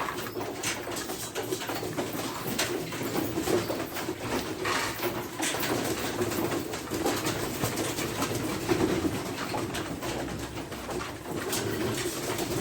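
Domestic pigeons cooing steadily in a loft, with scattered light clicks and taps.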